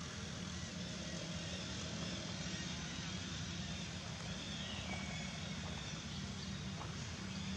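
Steady outdoor background noise with a constant low hum. A faint falling whistle comes about four seconds in.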